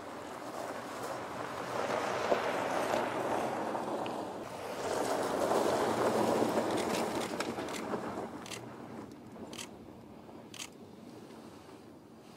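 Toyota FJ Cruiser driving over a loose gravel track, its tyres crunching and rushing over the stones. The sound swells twice as the SUV passes close, then fades, with a few sharp clicks of stones near the end.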